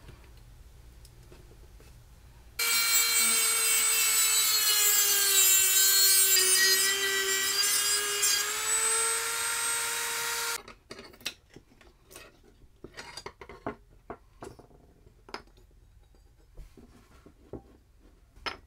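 A rotary tool with a small cutoff wheel runs for about eight seconds, cutting into a pin that holds an antique screwdriver's wooden handle scales; its whine sags in pitch in the middle of the cut, then rises again before stopping suddenly. Light clicks and knocks follow as the freed scale and pins are handled on the bench.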